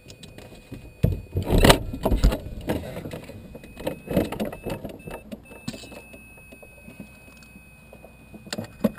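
Clicks, knocks and rattles in the cockpit of an LS6 glider standing on the ground as the canopy is unlatched and lifted. The handling noise is loudest about one to two and a half seconds in, then thins to scattered light knocks.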